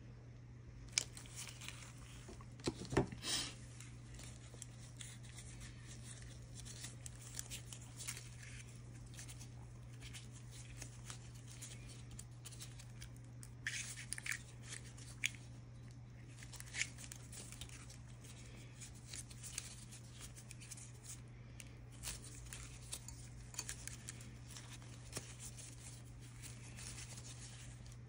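Wire strippers snipping and stripping thin green insulated hook-up wire: sharp snips and clicks, loudest in the first few seconds, then lighter scattered clicks and rustles, over a faint steady low hum.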